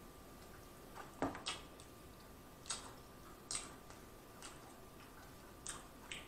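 A person chewing a mouthful of Big Mac close to the microphone: faint, irregular wet mouth clicks and smacks, roughly one a second, over a faint steady hum.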